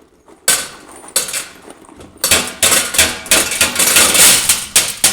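Nails and a metal spoon clattering into a small bucket, a few separate hits and then a dense run of metallic clatter from about two seconds in: foley imitating cereal pouring into a bowl, the spoon standing in for larger pieces thudding.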